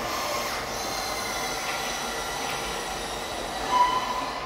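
Steady whine of the small electric motors in radio-controlled model construction machines, with thin high tones over a background hiss. A short, louder single high tone sounds near the end.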